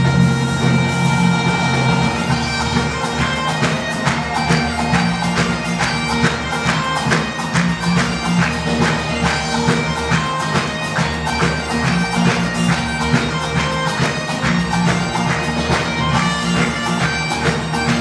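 Bagpipe tune over steady drones, played at a quick, even dance tempo.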